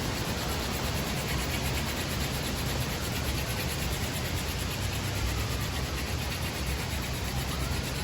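Strong wind buffeting the microphone: a steady rushing noise with a low rumble underneath.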